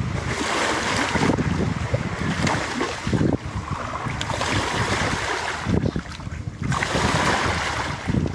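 Small lake waves sloshing against the shore in uneven surges, with wind buffeting the microphone.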